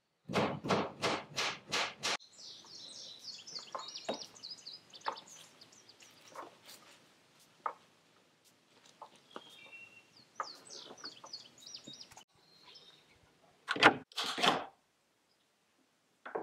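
About six quick mallet blows on wood, tapping wedges into board-and-batten wall siding. Then birds chirping outdoors for several seconds, and near the end two loud wooden knocks from a wooden cabinet door and its wooden latch.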